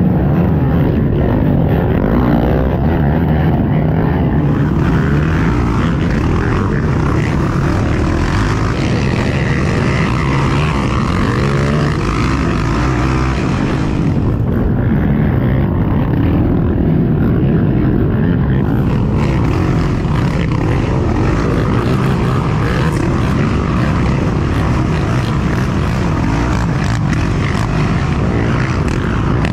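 Yamaha YFZ450R sport quad's single-cylinder four-stroke engine running hard under race throttle, its pitch rising and falling as the rider gets on and off the gas.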